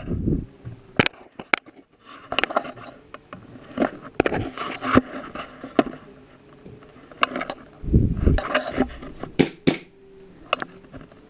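Rustling, scraping and knocking of clothing and gear against a clip-on GoPro mount as the wearer moves, with scattered sharp clicks and a few dull thumps.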